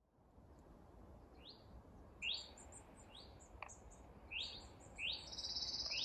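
Wild songbirds singing: short upslurred whistled notes repeated roughly every second, with fainter high chips, and a long trill that starts about five seconds in. A single sharp tick sounds about halfway through, over a faint low rumble.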